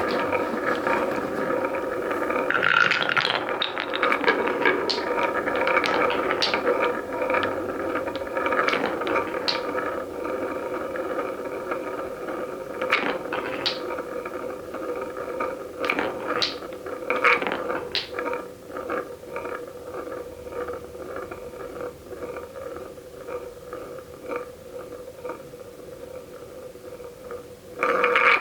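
Marbles rolling and clattering down a wooden marble run: a steady rolling rumble with many sharp clicks as the balls knock and drop. It slowly fades, then a short louder clatter comes near the end.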